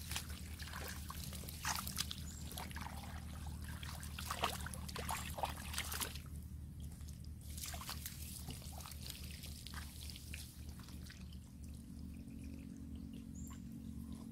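Hands scooping and splashing in shallow muddy water, a string of short wet splashes and trickles, busy for the first six seconds and then sparser and quieter.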